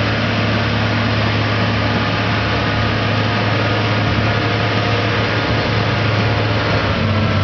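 Diesel engine of a JCB backhoe loader running steadily with a deep, even hum; the pitch dips slightly near the end.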